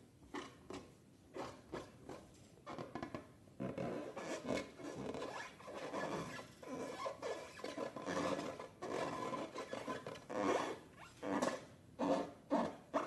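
Close rubbing and scraping strokes, about two a second at first, running together into a continuous rasp for several seconds in the middle, then separate strokes again near the end.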